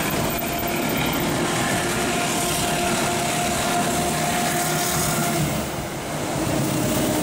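Diesel locomotive running past with a steady engine hum, hauling a passenger train whose coaches roll along the rails; the sound dips briefly about six seconds in.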